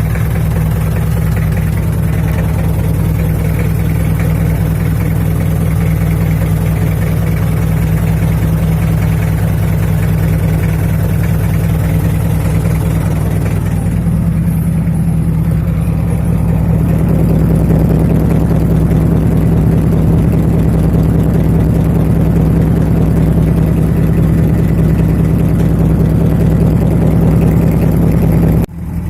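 Mitsubishi L300's diesel engine idling steadily through a single-funnel truck-style exhaust, a loud low drone that grows a little louder about two-thirds of the way through, then drops off suddenly near the end.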